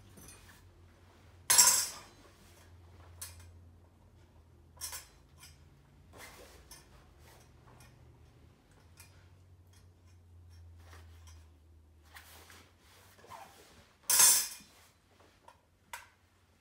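Metal clattering twice, loudly, about a second and a half in and again near the end, with fainter clinks of a stainless steel dog bowl in between as a dog eats from it.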